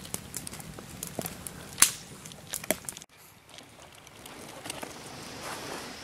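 German Shepherd dog chewing something held under its paw, making irregular sharp crunches and cracks. About three seconds in, this cuts off and a steady even hiss of flowing river water takes over.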